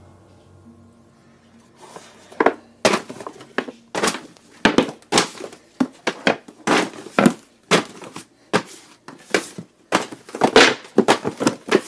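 Paperback books being pulled off a wooden bookshelf and dropped to the floor, in an irregular run of thuds starting about two seconds in.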